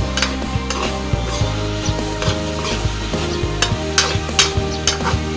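Metal spatula scraping and clinking against an aluminium wok while stirring sizzling sautéed banana heart, with sharp clinks loudest about four seconds in. Background music plays underneath.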